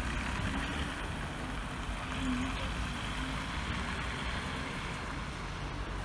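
Steady city street traffic noise, with the hiss of tyres on a wet, slushy road.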